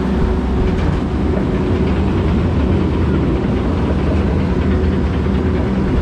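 Log flume lift hill conveyor running under the boat as it is carried up the incline: a steady low mechanical rumble and hum.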